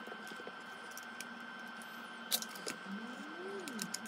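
Aiwa HS-PL30 cassette walkman being tried out after reassembly: a few faint clicks from its controls and handling over a faint steady tone, with a faint low sound that rises and then falls in pitch near the end.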